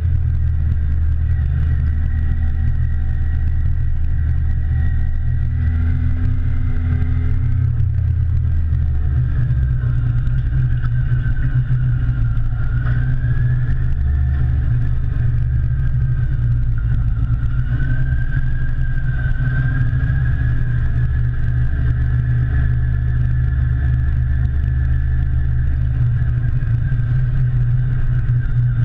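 Motorcycle ridden along with its engine running, the engine note rising and falling slightly with the throttle, under a heavy steady rumble of wind on the microphone.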